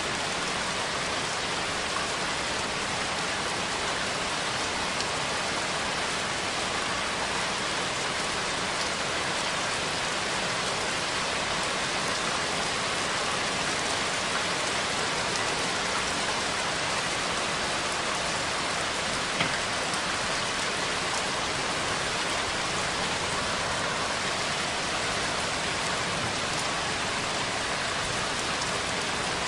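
Steady rain falling on a surface, an even hiss of many drops with no let-up.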